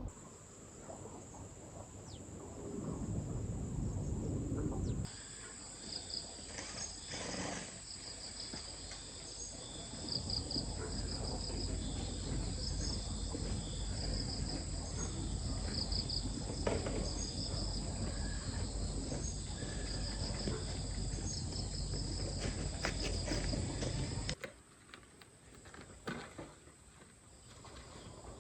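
Insects singing: a steady high-pitched whine with repeated chirping pulses over it, over a low noisy background. The chirping starts abruptly about five seconds in and stops abruptly a few seconds before the end.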